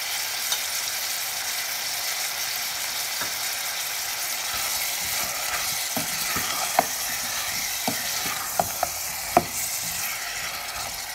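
Halved tomatoes sizzling in oil in a metal saucepan, with a steady hiss. In the second half a wooden spoon stirs them, knocking sharply against the pan several times.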